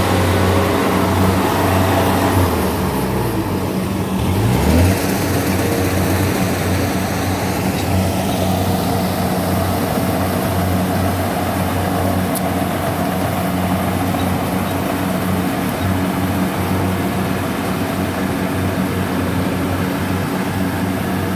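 Kubota DC70 combine harvester's diesel engine running steadily. Its pitch dips and comes back up a few seconds in.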